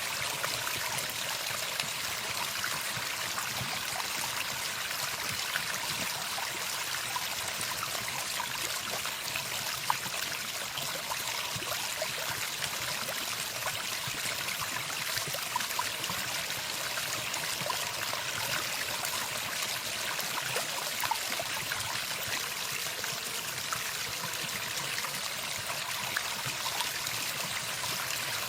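Running water: a stream trickling and flowing steadily, with no birdsong.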